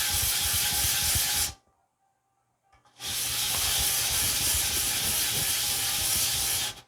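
Pressurized spray hissing in two long, steady bursts with sharp starts and stops. The first lasts about a second and a half; after a short pause the second lasts about four seconds.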